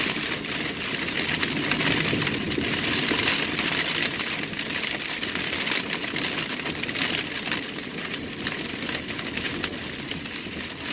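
Heavy rain hitting the roof and windshield of a car, heard from inside the cabin as a dense, steady hiss with many small ticks of drops, over the engine running.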